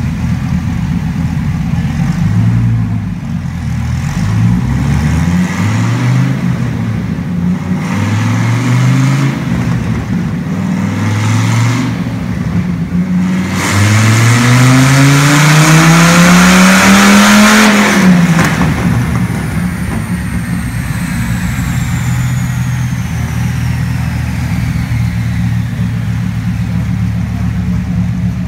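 Dodge Charger engine on a chassis dyno. It gives a series of short throttle blips, then a long full-throttle pull rising steadily in pitch for about four seconds, the loudest part. The pull cuts off sharply, and the engine drops back to a steady idle while a faint high whine falls away.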